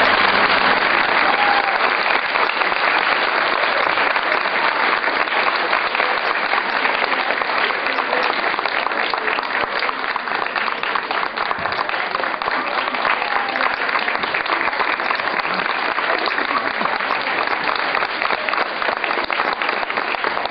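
Audience applauding: many hands clapping together, loudest at the start and easing slightly.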